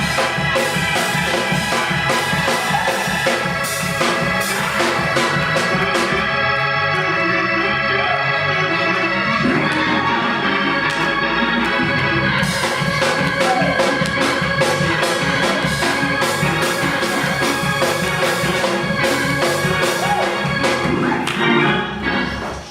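Organ music: an organ holding sustained chords over a steady beat of percussion strikes, dipping briefly near the end.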